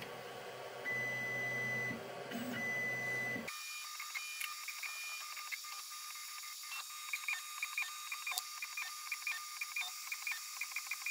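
Ender 3 3D printer's stepper motors whining as the print head travels. There are two held tones in the first few seconds. Then a background hum drops out suddenly and a run of short, quick pitched chirps follows as the head makes short moves.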